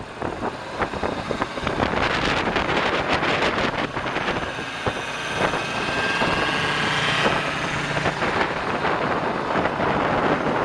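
Wind buffeting the microphone over the steady running of a truck's Cummins LTA10 turbo diesel engine.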